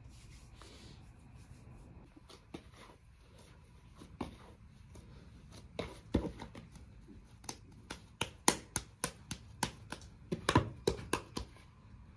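Sharp clicks and knocks of hand food preparation at a kitchen worktop: a few scattered ones at first, then a quicker, louder run of irregular taps, about two to three a second, in the second half.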